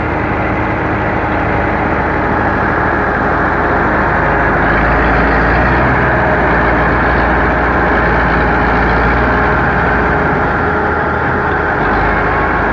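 Belarus MTZ-50 tractor's four-cylinder diesel engine running steadily under load as the tractor pushes mud with a front dozer blade. The low rumble grows heavier for several seconds midway.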